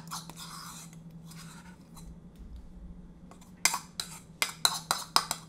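A spoon scraping thick red chili sauce out of a bowl, a rasping scrape over the first couple of seconds, then a quick run of about eight sharp clicks of the spoon against the bowl in the second half.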